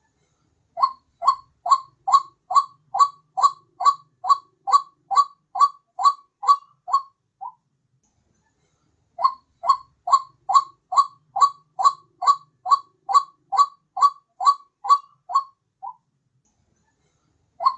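White-breasted waterhen calls played as a lure call: two long runs of one short note that rises slightly in pitch, repeated about two to three times a second. Each run lasts about seven seconds, with a short pause between them and another run starting right at the end.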